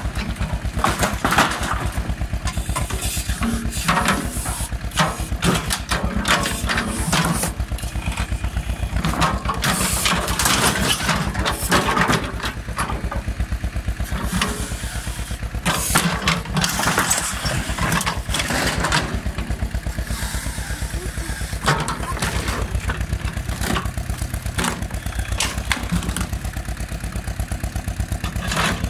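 Ursus C-330 tractor's two-cylinder diesel engine running steadily while working a Troll backhoe, with repeated crashes and clattering of wooden boards and corrugated sheet metal as the bucket pulls down and drops the shed debris.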